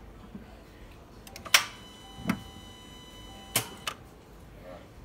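A 2016 Dodge Charger failing to start on its push-button ignition: four sharp clicks, the loudest about a second and a half in, over electronic dashboard tones that sound on and off, with no engine cranking or running.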